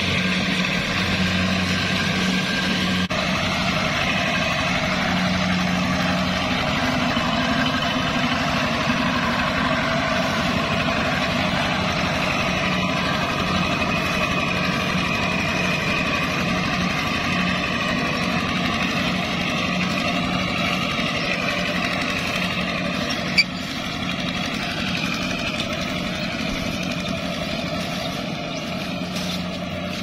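Diesel engines of rice-harvesting machinery running steadily: a Kubota combine harvester working, then a two-wheel walking tractor with a loaded trailer. A single sharp click about three quarters of the way through, after which the engine sound is slightly quieter.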